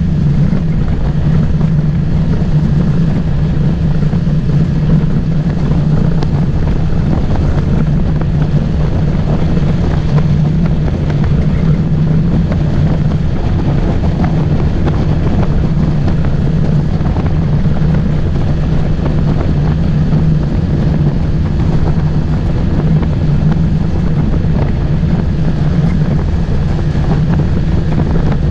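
Motorboat engine running steadily, a constant loud drone that does not change pitch.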